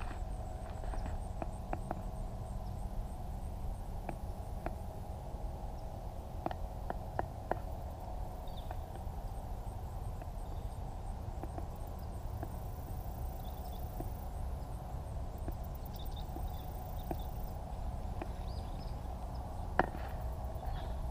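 Scattered light clicks and taps of handling noise over a steady low rumble, with one sharper tap near the end.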